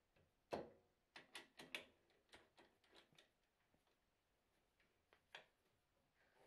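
Four-jaw lathe chuck being tightened onto a pine blank with a T-handle chuck key: a string of irregular metal clicks and knocks. The loudest comes about half a second in, most of the rest fall in the next two and a half seconds, and a single click comes near the end.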